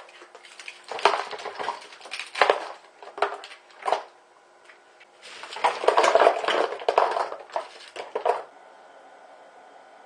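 Ice cubes knocked out of plastic ice-cube trays, clattering and rattling into a small plastic ice chest onto blue ice packs, in two bursts of sharp knocks.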